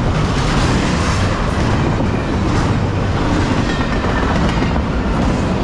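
Double-stack intermodal freight train's well cars passing close at track speed: steel wheels rolling on the rails in a steady, loud rush of noise.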